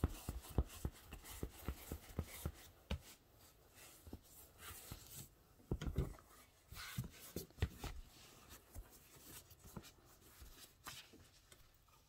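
Hands pressing, rubbing and handling a TPE foam yoga mat. There is a quick run of soft taps in the first two or three seconds, then scattered taps and scratchy rubbing.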